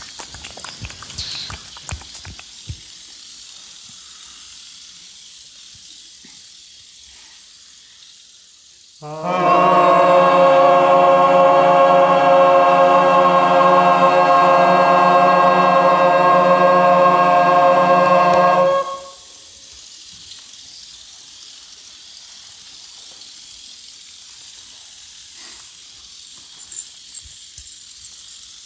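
Live ensemble performance of contemporary music: a few crackling clicks, then faint hiss, then a loud held chord of many steady pitches. The chord starts suddenly about nine seconds in, sounds for about ten seconds, and cuts off abruptly.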